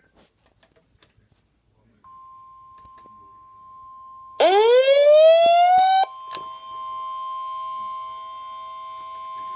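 Emergency weather alert tones. A steady single-pitch alert tone starts about two seconds in. About two seconds later a much louder siren-like wail rises in pitch for under two seconds and cuts off. The steady tone then goes on with a second, lower tone under it. The tones herald a National Weather Service severe thunderstorm warning broadcast.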